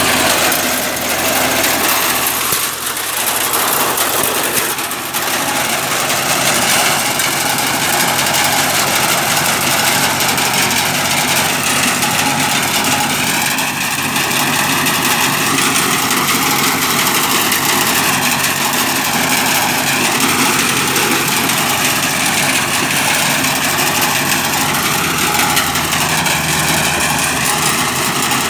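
Compact tractor engine running steadily under load as its rear-mounted rotary tiller churns soil and dry grass. A high whine wavers up and down in pitch over the engine noise, with brief dips in loudness about two and a half and five seconds in.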